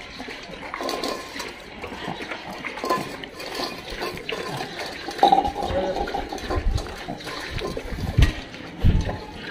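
Several dogs eating wet food from steel bowls, with lapping, chewing and clinks of the bowls, and a few dull thumps in the second half.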